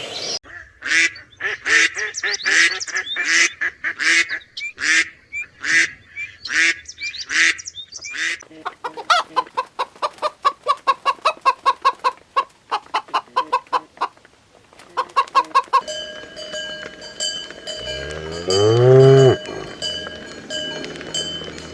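A run of farm animal calls: about eight seconds of repeated honking calls from a large fowl, then a fast steady string of short clucking or quacking notes. Near the end a cow moos once, loudly, over a steady ringing like a cowbell.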